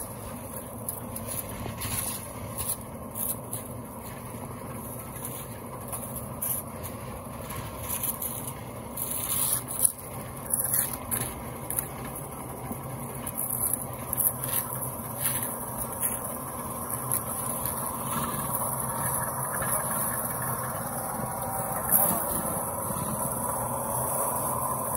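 Shovels scraping and chopping through wet concrete mix on bare ground, with many short sharp scrapes and clinks, over the steady hum of an engine.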